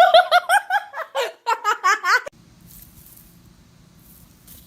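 High-pitched giggling laughter: a quick run of rising 'ha' notes, about five a second. It cuts off abruptly a little over two seconds in, leaving faint background hum.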